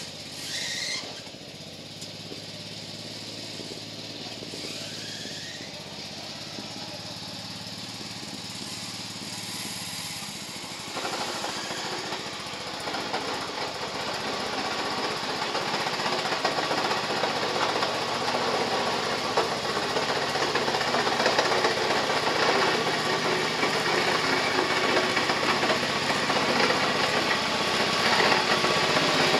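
A WOLF-Garten Cart OHV 2 ride-on mower's small OHV petrol engine runs steadily as the mower drives closer, growing steadily louder. About eleven seconds in, a broad rushing noise thickens the sound.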